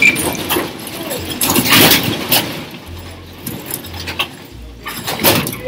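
A room rumbling and rattling as it shakes in an earthquake, loudest in the first two seconds and dying down, with a few sudden rattling bursts.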